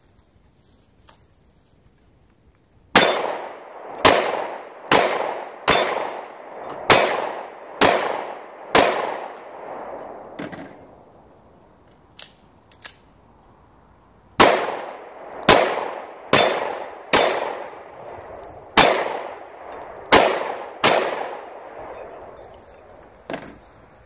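Smith & Wesson M&P Shield 9 pistol firing 9mm rounds in two strings of about seven shots each, roughly one shot a second, with a pause between them broken by a couple of light clicks.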